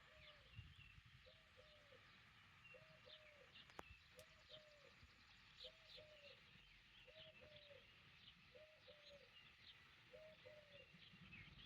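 Faint birdsong: a low two-note call repeats about every second and a half, with scattered higher chirps from small birds.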